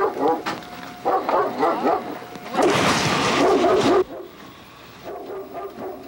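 Police dog barking repeatedly, loudest for about a second and a half in the middle.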